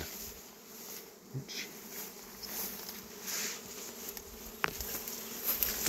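Swarm of honeybees buzzing in flight, a steady low hum of many bees.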